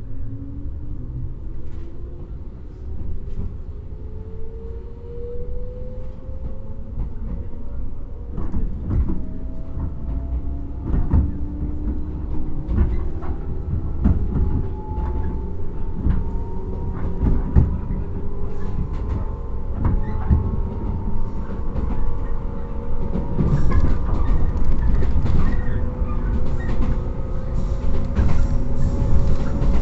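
JR 115 series electric train heard from inside its motor car: the MT54 traction motors whine and climb steadily in pitch as the train accelerates, over a low running rumble. Rail-joint clacks grow more frequent as it speeds up.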